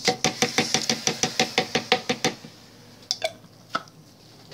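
Rapid knocking on a plastic soap-making bucket, about seven knocks a second for two seconds, then two single knocks.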